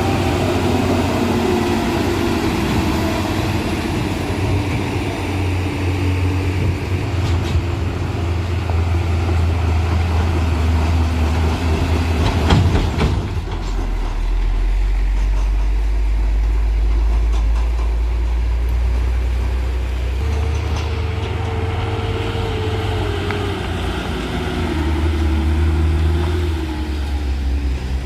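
Heavy truck's diesel engine labouring up a steep climb, its note rising and falling. About twelve seconds in there is a sharp knock, and after it the engine drone settles lower.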